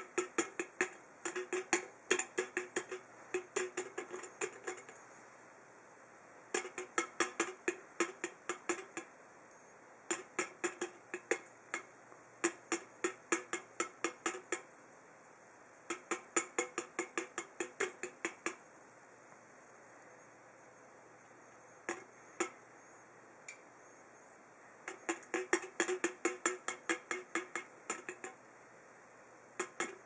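A budgerigar pecking and biting at the pull tab and rim of an aluminum soda can: rapid metallic ticks and clinks, several a second, in bursts of a few seconds separated by short pauses, with a few single taps in one lull.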